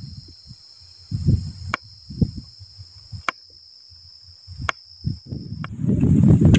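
Kitchen knife cutting peeled cassava on a wooden cutting board: a few sharp knocks and soft thuds, about one a second, over a steady high buzz of insects. Near the end the insect buzz stops and loud, gusty wind rumbles on the microphone.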